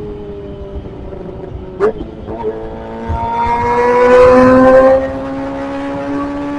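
Kawasaki ZX-25R's inline-four engine running under way, its pitch sagging a little, then rising and getting louder as the throttle opens about three seconds in, easing back near five seconds while the revs keep climbing slowly. A single sharp click shortly before two seconds.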